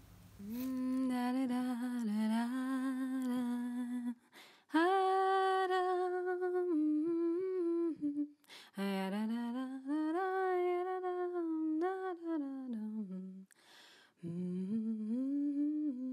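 A woman humming a slow, wavering melody in long phrases, with short breaks between them.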